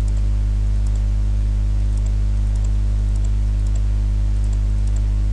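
Steady electrical mains hum from the recording setup, low and unchanging, with a few faint computer mouse clicks.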